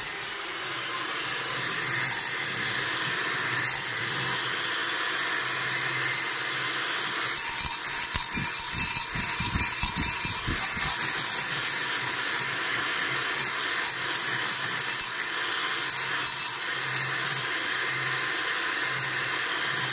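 Electric hand mixer running steadily with its twin beaters whisking egg whites in a glass jug, the whites frothing up on the way to stiff peaks. About eight seconds in the sound gets louder and more uneven for a few seconds, with low knocks as the beaters move about the jug.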